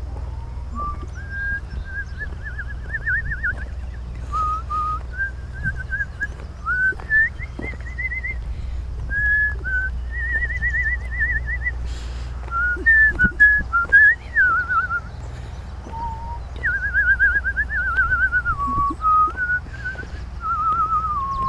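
A person whistling a long, wandering tune that steps up and down in pitch and breaks often into quick warbling trills. A low steady rumble lies underneath.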